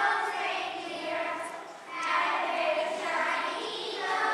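A group of children singing together in held phrases, with a short break about two seconds in before the next phrase begins.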